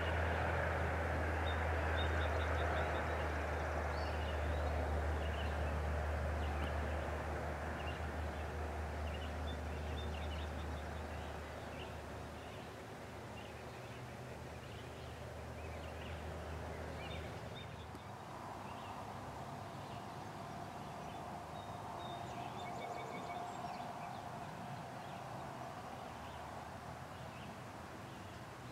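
A low, steady engine drone, like a distant vehicle or plane, fades out about twelve seconds in. It leaves quiet outdoor ambience with faint, scattered songbird chirps.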